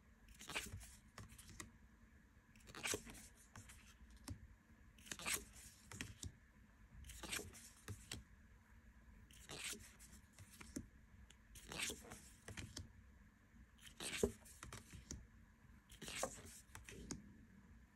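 Tarot cards being slid one at a time off a deck held in the hand: a short, dry card-on-card swish about every two seconds, eight in all.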